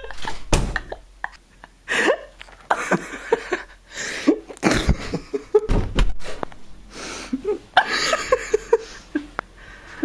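Breathless laughter and gasps in short bursts, with a few low bumps from the handheld camera being carried.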